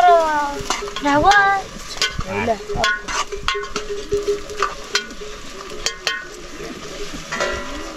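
Food frying in a metal pan and being stirred: a steady sizzle with many sharp clicks and scrapes of the spoon against the pan. A voice is heard briefly at the start.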